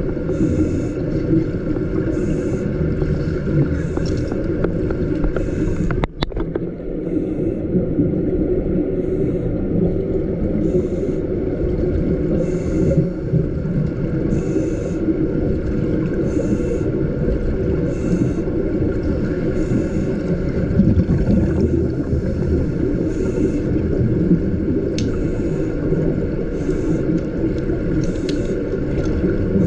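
Underwater sound in a pool: a steady low rumble with scuba regulator bubbling from divers breathing. The sound drops out briefly about six seconds in.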